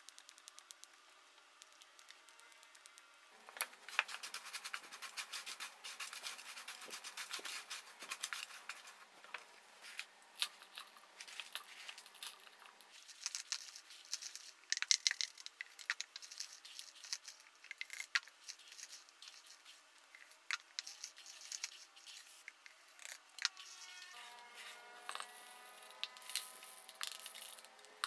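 Kitchen scissors snipping sun-dried banana, then loose dry granola crackling and rattling as it is tipped from a metal baking tray through a funnel into glass jars. The clicking starts about three seconds in and goes on irregularly, with a drawn-out scraping of a spoon on the metal tray near the end.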